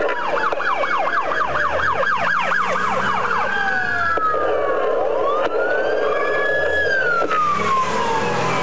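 Police car sirens, more than one at once: a fast yelp for the first few seconds, then a slower rising and falling wail.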